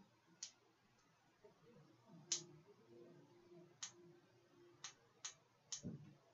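Switch on a video light clicked again and again, about six sharp clicks at uneven intervals with a short low thump near the end: repeated tries at turning on a light that won't come on.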